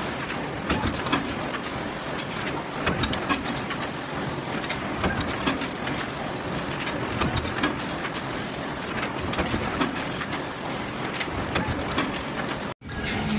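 Multi-station stamping press line with deep-drawing dies and a transfer feeder running: steady mechanical clatter full of sharp clicks and knocks as sheet-steel blanks are moved between die stations, with a few short spells of hiss. It cuts off suddenly near the end.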